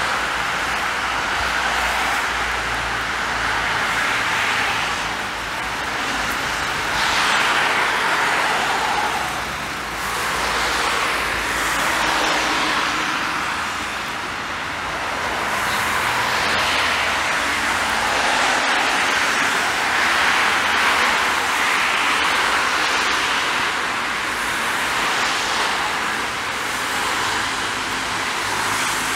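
Road traffic: cars passing one after another, their tyre and engine noise swelling and fading every few seconds over a steady background rumble.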